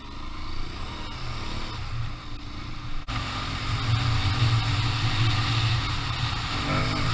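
Aprilia Tuareg 660 parallel-twin engine running under way off-road, with wind rushing over a helmet microphone. About three seconds in there is a sharp click, and the engine note then gets louder and stays up as the bike is opened up.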